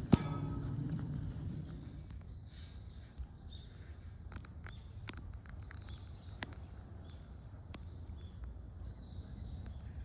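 Handling noise from a phone held by hand: a sharp knock at the start and a low rumble for about two seconds as it moves. After that comes faint outdoor ambience with scattered light ticks and faint high chirps.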